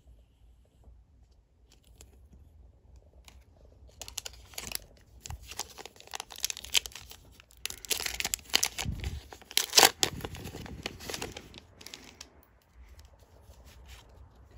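Foil wrapper of a Pokémon TCG booster pack being torn open and crinkled by hand: crackling rips start about four seconds in, the loudest tear comes about ten seconds in, and they die away a couple of seconds later.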